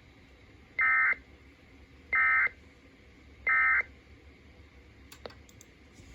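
Three short, loud buzzing bursts of Emergency Alert System SAME digital data, about a second apart: the End of Message (NNNN) code that closes an EAS alert. A few faint clicks follow near the end.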